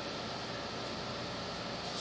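Steady air-conditioner noise: an even hiss with a faint high tone running through it.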